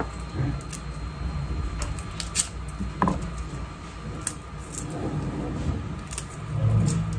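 Garlic cloves being peeled by hand over a small metal bowl: scattered light clicks and papery rustles at irregular intervals.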